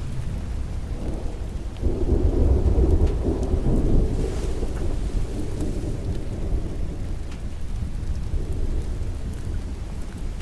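Thunder rolling over steady rain, swelling suddenly about two seconds in and slowly dying away.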